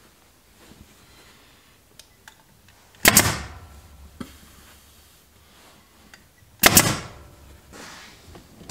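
Two loud, sharp bangs about three and a half seconds apart, each ringing briefly in the car's steel body, with a few faint clicks of work on the headliner cloth between them.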